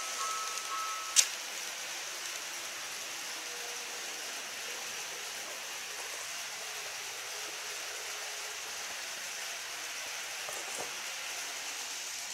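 A model railway level crossing's two-tone warning alarm sounds briefly and stops about a second in, ending with a sharp click as the crossing resets after the train has passed. After that, a steady hiss.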